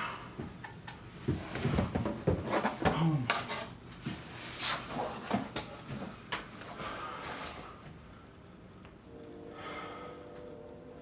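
A run of knocks and clatter, like drawers or cupboards being handled, with some muffled voice sounds among them; it quietens after about seven seconds.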